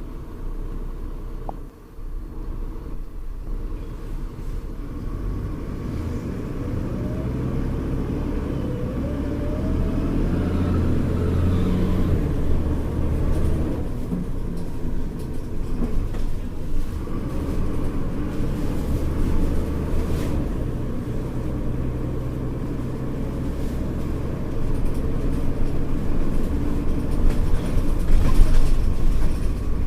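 Mercedes-Benz O-500U city bus engine and ZF Ecomat automatic transmission running under way, a steady low rumble. About a quarter of the way in a whine rises in pitch as the bus accelerates, then it settles and gets somewhat louder toward the end.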